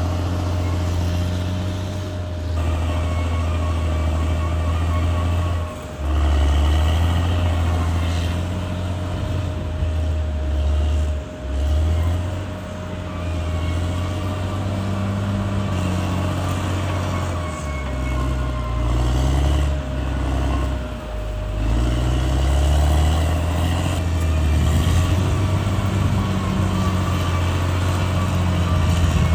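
Caterpillar D6R XL bulldozer's diesel engine running under working load, its pitch rising and falling as it revs and lugs, with a steady thin whine over it.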